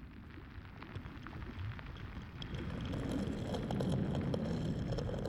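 Low rumbling ambience with faint scattered crackles, swelling louder about halfway through.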